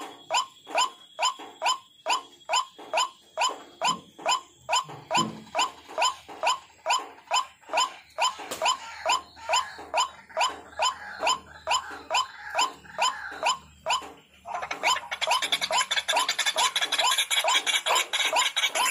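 White-breasted waterhen (ruak-ruak) calling over and over in an even rhythm, about two and a half calls a second. About three-quarters of the way in, a steady high hiss joins beneath the calls.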